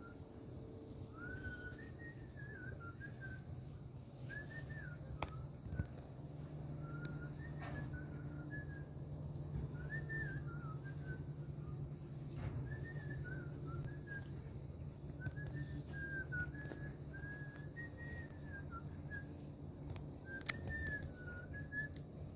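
A person whistling a slow, wavering tune in short phrases, over a steady low hum, with a couple of sharp clicks.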